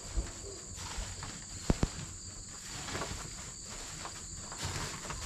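Steady high-pitched insect chirring, like crickets, with rustling and scraping and a few sharp knocks, the last two close together about a second and a half in.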